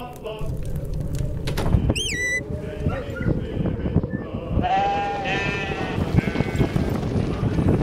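Sheep bleating over a steady low rumble, with one long bleat about five seconds in and a short, high gliding call about two seconds in.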